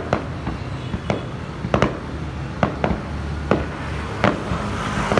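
Aerial fireworks shells bursting overhead: a string of sharp bangs at uneven intervals, roughly one or two a second, over a low rumble.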